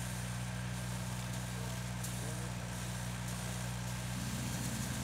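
Fire engine's diesel engine running steadily to drive its pump, a constant low drone, with a rougher sound joining in about four seconds in.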